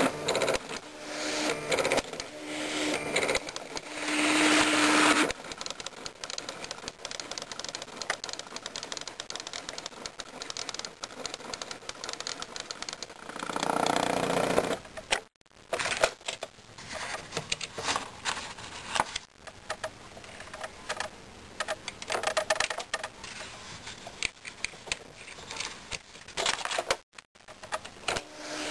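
Smith Corona Graphtext 90 pen-plotter typewriter printing: its small motors buzz and tick rapidly as the pen and paper step about, with louder whirring stretches of faster movement in the first few seconds and again about halfway. The sound cuts out briefly twice.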